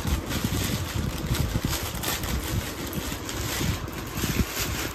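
Clear plastic packaging bag crinkling and rustling as a cotton top is pulled out of it and laid down, in short irregular crackles, over a steady low rumbling noise like wind on the microphone.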